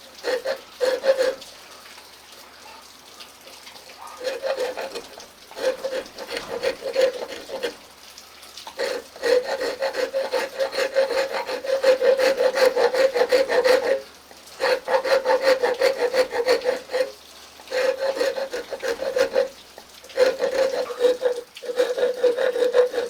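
Wood file rasping an axe handle, shaping the wood to fit the axe head, in repeated strokes of about one to five seconds with short pauses between them. Each stroke is a fine, rapid scratching with a steady ringing tone running through it.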